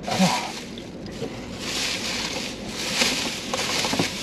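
Plastic takeout bag rustling as it is opened and rummaged through, with a few sharp clicks near the end.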